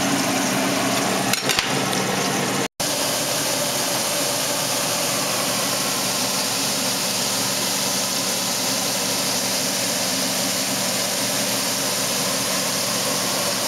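Cubes of meat searing in hot oil in a stockpot, a steady, dense sizzle, the sign that the oil is hot enough for the meat to brown instead of stewing in its juices. The sound drops out for an instant about three seconds in.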